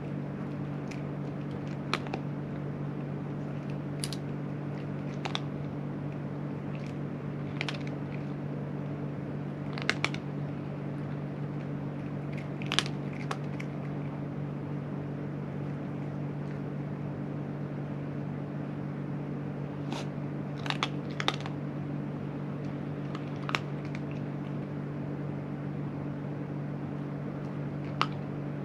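A cat crunching dry food: short, sharp crunches at irregular intervals, a few seconds apart, over a steady low machine hum.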